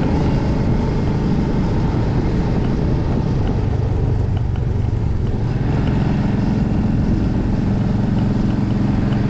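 Royal Enfield Meteor 350's single-cylinder engine running steadily while the motorcycle cruises, under a steady rush of wind and road noise. The engine note grows clearer about halfway through.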